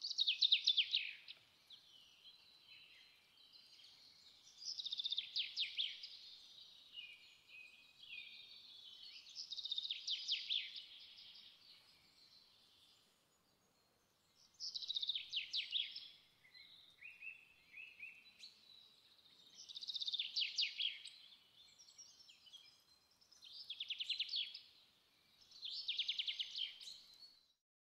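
A bird singing short, high trilled phrases, repeated about seven times a few seconds apart.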